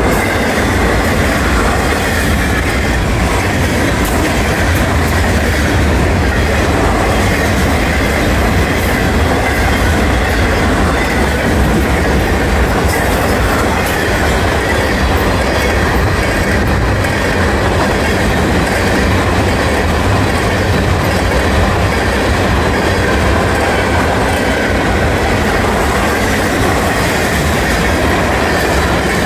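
Freight cars of a fast Florida East Coast freight train rolling past at speed: a steady, loud rumble and clatter of steel wheels on the rails.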